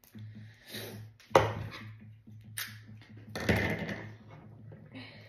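Hard plastic toy egg being handled and pried at on a wooden table: scattered small clicks, a sharp knock about a second and a half in, and a longer clattering rustle around three and a half seconds.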